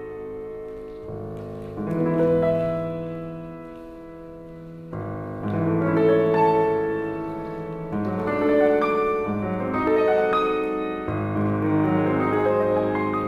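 Piano playing slow classical ballet music in full, sustained chords, changing every second or few seconds and swelling louder and softer.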